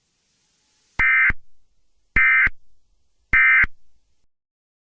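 Emergency Alert System end-of-message signal: three short, shrill data bursts about a second apart, the SAME digital code that closes an alert broadcast.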